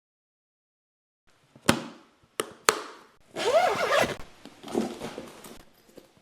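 Lunch box and food containers being handled: three sharp clicks or knocks, then a squeaky rubbing sound for about a second, followed by softer handling noises.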